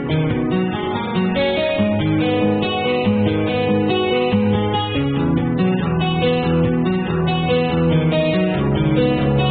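Background music played on acoustic guitar, with notes and chords changing steadily.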